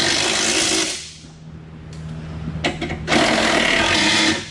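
Red Milwaukee cordless power tool running down the nuts on a strut's top mount in two bursts, the first at the start and the second about three seconds in, with a quieter stretch between.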